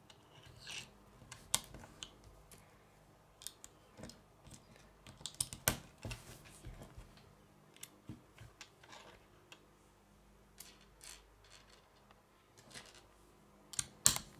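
Small Lego plates and tiles being pressed together and set down on a wooden tabletop: scattered light plastic clicks and taps, with a sharper click near the end.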